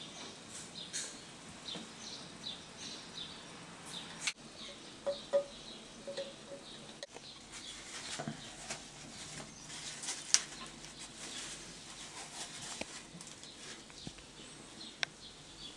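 Rustling and handling noise close to the microphone, with scattered small clicks and knocks, as hands work over a plastic baby doll and its cloth carrier.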